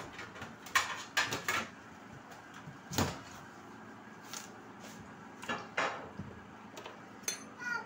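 Kitchen knife working a peeled squash on a plastic cutting board. There are a few quick scraping strokes about a second in, a single sharp knock around three seconds, and two more cuts with the blade knocking on the board near six seconds.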